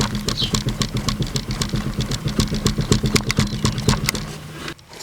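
Rapid, irregular clunks and clicks from a 1998 Corvette C5's right rear wheel hub as the tire is rocked back and forth by hand: the hub has play in it, the sign of a worn hub bearing that needs replacing. A steady low hum runs underneath and stops near the end.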